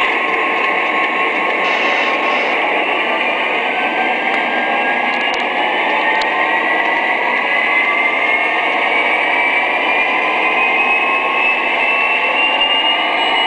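Lionel O-scale diesel locomotive's onboard sound playing a steady diesel engine running, with a whine that rises slowly in pitch from about four seconds in.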